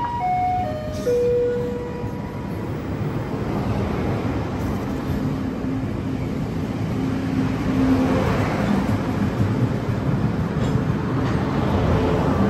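A four-note chime stepping down in pitch, then a Taiwan Railways Fu-Hsing passenger train pulling out along the platform: a steady rumble of the carriages on the rails that slowly grows louder, with a faint hum.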